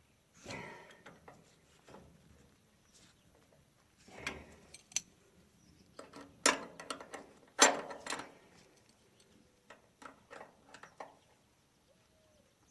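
Irregular metal clanks, clicks and scrapes of roller chain being handled and fitted on a baler, with two sharper knocks near the middle.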